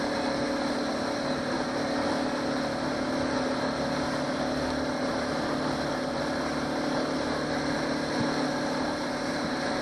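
Johnson 90 hp V4 two-stroke outboard running steadily with the boat under way, an even engine tone over the rush of the wake.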